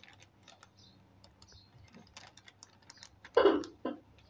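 Small scattered clicks and taps of kitchen handling while dried oregano is added to raw eggs in a ceramic bowl, with a louder short clatter about three and a half seconds in and a smaller one just after.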